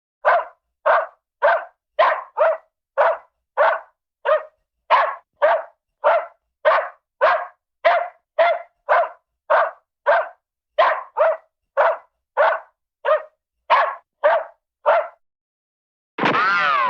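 Small spaniel barking excitedly: a long run of about thirty short, sharp barks at about two a second. This is a sound-effect library recording. Near the end a short sound with bending, sliding pitch follows.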